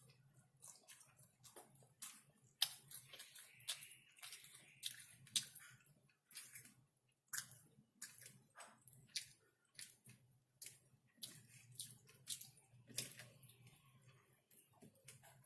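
Close-miked chewing of chicken: irregular wet smacking and crackling mouth clicks, several a second.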